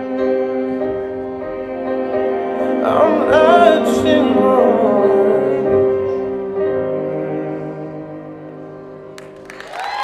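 Slow lyrical song with held chords and a solo singing voice that swells about three seconds in, then dies away as the track ends. Applause and cheering break out just before the end.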